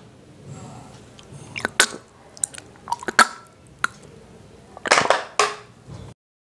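Quiet mouth and handling sounds of men drinking from cups and chewing snacks: scattered short clicks and smacks, then a short throaty sound about five seconds in. The sound cuts off suddenly just after six seconds.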